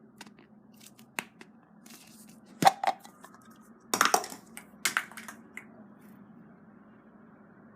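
Surprise eggs being opened by hand: a handful of sharp cracks and crinkles in short clusters, then a quiet stretch over the last couple of seconds.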